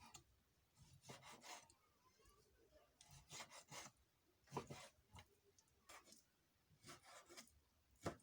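Faint knife strokes slicing raw chicken breast into strips against a cutting board: short scraping draws that come in small clusters every second or two.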